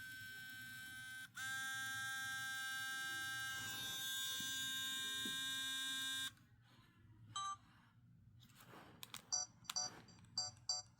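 Sony Cyber-shot compact camera's lens motor buzzing steadily and loudly while the camera fails to turn on. It cuts out for a moment about a second in, then runs on and stops abruptly about six seconds in, followed by a short blip and a quick run of small clicks and high beeps.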